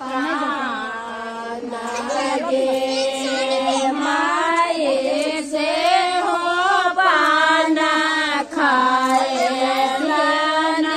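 Women and girls singing a Maithili Sama-Chakeva folk song together, unaccompanied, in a chanting melody with long held notes.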